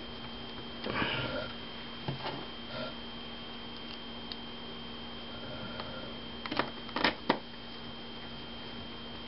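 Scattered light clicks and taps of a screwdriver and small screws being handled and fitted into a laptop screen assembly, with a brief rustle about a second in and the loudest cluster of clicks about seven seconds in.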